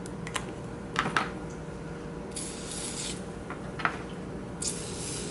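Aerosol spray starch hissing from the can in two short bursts, the first a little over two seconds in and the second near the end, coating ribbon wound on a dowel rod. Between them come a few light clicks and knocks as the clothespin-clipped rod is handled and turned on the tray.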